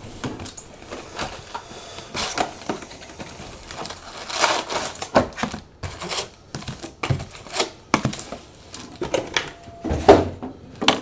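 Trading card boxes and packs being handled and opened by hand: an irregular run of clicks, taps and rustles of cardboard and wrapper.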